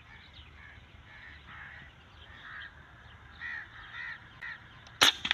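Birds calling over and over in short repeated calls, then near the end a single sharp crack of an M22 PCP air rifle firing.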